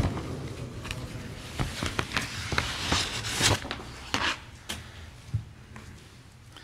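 Rustling, shuffling and scattered light knocks from a large congregation settling down, dying away toward the end.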